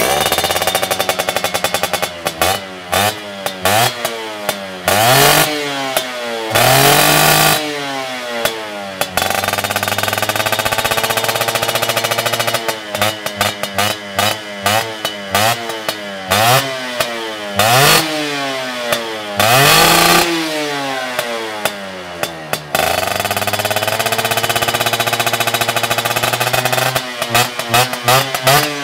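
Yamaha 125Z's single-cylinder two-stroke engine, fitted with an AHM titanium exhaust, revved on the stand: repeated throttle blips, the pitch rising and falling, with sharp crackles as the revs drop. It settles to a steadier run twice between the bursts.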